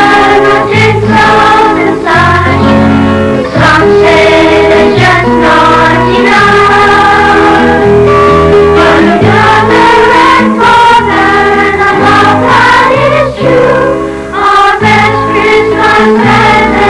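A children's school choir singing a Christmas song, with sustained low accompanying notes under the voices.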